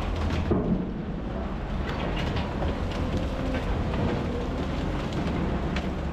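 Heavy diesel equipment, a wood grinder and a wheel loader at work, running with a steady low rumble and scattered knocks and clatters.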